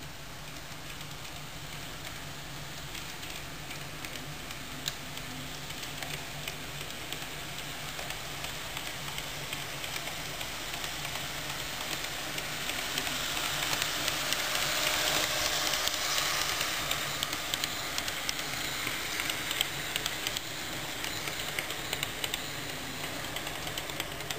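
Model of a yellow Plan U diesel train running along the track. Its motor and wheel noise grows louder as it approaches, is loudest about fifteen seconds in as it passes, then fades, with scattered faint clicks from the wheels on the rails.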